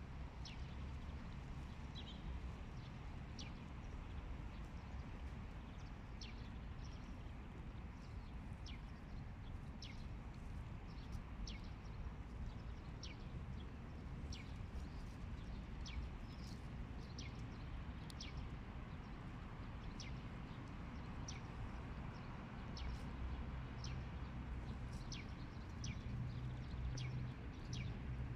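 A small bird giving short, high chirps, repeated irregularly about once a second, over a steady low rumble.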